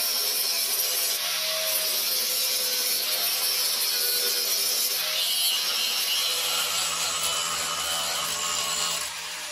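Electric angle grinder grinding rust off the steel frame of a 1952 Greyhound PD-4103 bus tailgate: a steady rasp of the disc on metal over the motor's whine. Near the end it comes off the work and the motor begins to wind down with a falling pitch.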